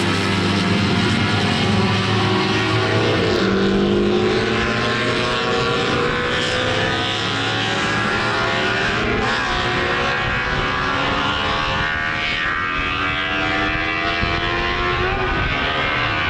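Honda six-cylinder Grand Prix racing motorcycle engines running hard at high revs, a loud multi-cylinder howl whose pitch climbs slowly, with brief dips about 3, 9 and 15 seconds in.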